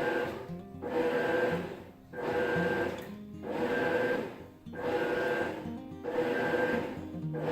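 Top-load washing machine agitating: the motor whines through back-and-forth strokes that repeat about every one and a quarter seconds, with a short dip between strokes.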